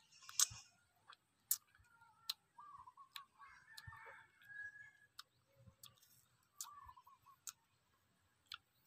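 Close-up eating sounds of a person eating a yellow passion fruit: a short wet slurp of the pulp just after the start, then irregular sharp clicks and smacks, about one a second, from chewing the crunchy seeds and handling the fruit. Faint wavering sounds come in around the middle and again about seven seconds in.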